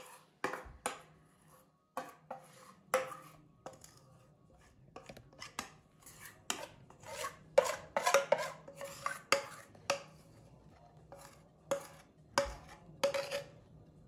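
A metal spoon scraping and tapping against the rim of a bowl as cake batter is scraped out into a baking tin: a run of irregular sharp scrapes and knocks, thickest in the middle.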